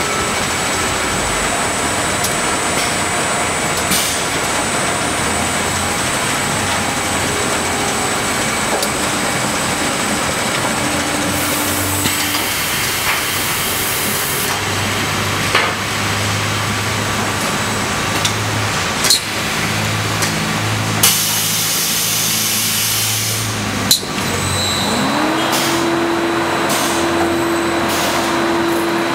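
Automated pallet conveyor and plastic pallet-hooding machine running: a steady mechanical din with several sharp clicks and knocks, and two spells of hiss a few seconds long. About 25 seconds in, a motor whine rises in pitch and then holds steady.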